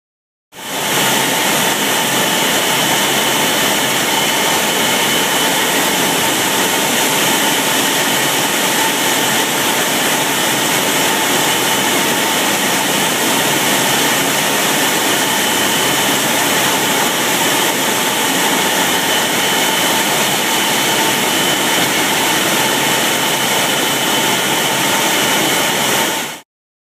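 Canning-line noise from cans moving at high speed on washdown can conveyors: a loud, steady, dense rush with two faint steady whining tones above it. It starts and stops abruptly.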